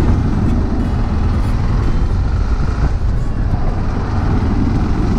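Steady riding noise from a Yamaha Ténéré adventure motorcycle at road speed: wind rushing past the bike-mounted microphone with the engine running beneath it, and a large truck driving alongside in the next lane.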